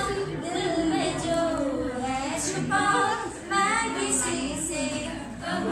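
A woman singing unaccompanied, holding and bending long melodic notes.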